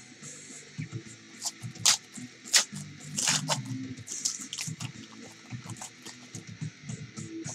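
Trading-card pack wrappers crinkling and being torn open by hand as a pack is ripped. There are a few sharp crackles about two seconds in, then a longer run of crinkling.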